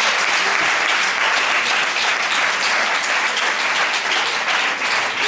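Audience applauding, a dense, steady wash of clapping.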